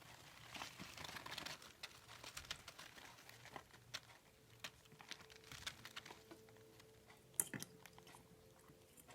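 Forpus parrotlet being hand-fed: faint, irregular small clicks and smacking sounds of its beak as it eats, with one sharper click about seven seconds in. A faint steady hum sits underneath from about halfway through.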